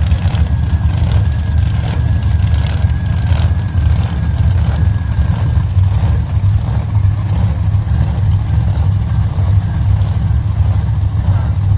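Drag-race car engines running in the staging lanes: a loud, steady, deep rumble that carries on without letting up. A faint steady high whine sits over it and fades out about halfway through.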